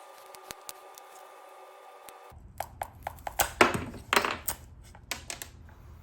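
Irregular clicks and short scrapes of small hand work on a wooden box, starting about two seconds in. Before that there is only a faint steady hum.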